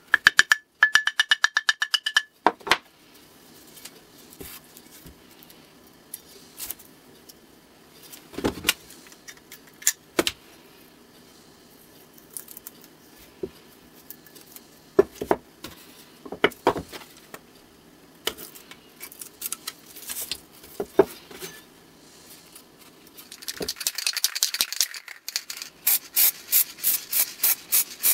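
A small hammer tapping rapidly on the edge of a cast-iron Stanley 110 block plane to cut masking tape along it, the plane ringing with each tap, for about two seconds. Then scattered light clicks and rustling as the tape is handled and pressed down. Near the end an aerosol spray paint can hisses, first briefly and then in quick, evenly spaced bursts.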